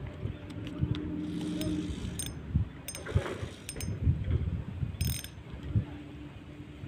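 Spinning fishing reel being cranked, a steady gear whir with several sharp clicks, over dull knocks from handling the rod and boat.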